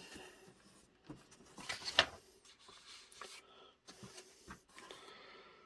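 Paper instruction manual being handled, its pages giving a few soft rustles, the loudest about two seconds in.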